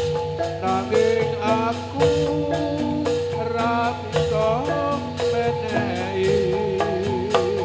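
Instrumental interlude of Javanese gamelan-style music for a gedruk dance: metallophone notes and a steady drum pattern, with a wavering held melody line coming in near the end.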